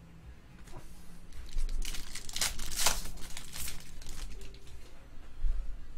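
Foil wrapper of a 2018 Topps WWE Undisputed trading-card pack being torn open and crumpled by hand: crisp crinkling of the foil, loudest about two to three seconds in.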